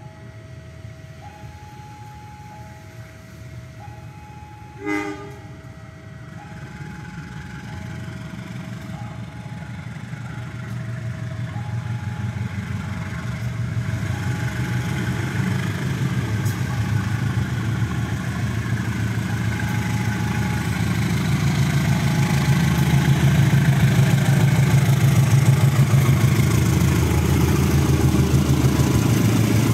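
KAI CC 201 diesel-electric locomotive hauling a train approaches and passes, its engine and wheel rumble building steadily to the loudest in the last few seconds. One short horn blast sounds about five seconds in, and a two-tone warning signal alternates high and low through the first two-thirds.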